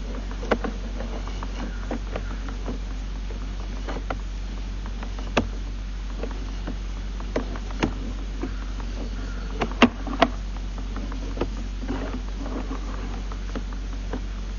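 Sewer inspection camera's push cable being drawn back onto its reel: scattered clicks and knocks over a steady low hum, the loudest two close together about ten seconds in.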